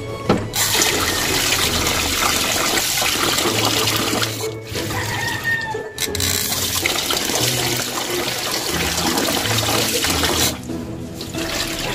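Tap water running hard into a stainless steel sink and a pot of glutinous rice being rinsed. The rush breaks off briefly twice, around four and a half and six seconds in, and stops near the end. Soft background music plays underneath.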